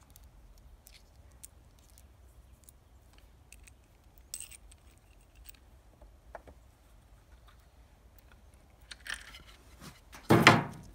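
Light metallic clinking and scattered clicks of large screws and washers being handled and set into holes in a log. A louder short knock comes near the end.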